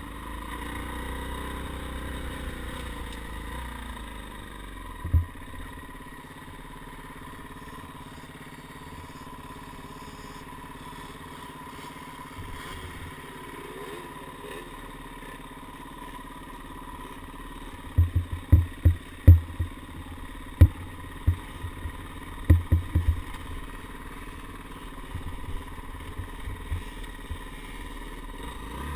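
Off-road dirt bike engines running steadily at low trail speed. A heavy thump about five seconds in and a quick string of heavy thumps roughly two-thirds of the way through stand out over the engine.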